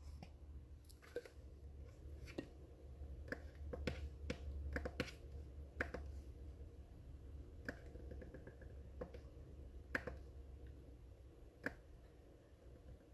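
Laptop keyboard keys tapped in scattered, irregular clicks, faint, over a steady low hum.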